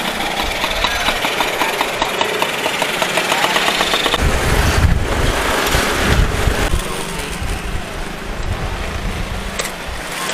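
Motor scooter engine running while riding through street traffic, with a heavy low rumble from about four to seven seconds in.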